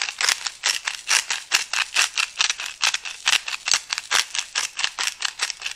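Disposable spice grinder twisted by hand, grinding salt and pepper: a fast, even run of dry ratcheting clicks, about seven a second.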